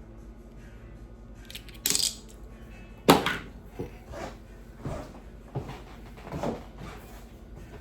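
Metal clinks and knocks from hand tools being handled: a short scrape about two seconds in, a loud clank a second later, then several lighter knocks.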